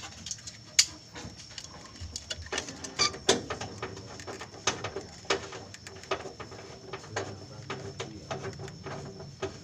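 Irregular clicks and knocks of hand tools and metal engine parts being handled, a few louder ones near the start, over a faint steady high-pitched whine.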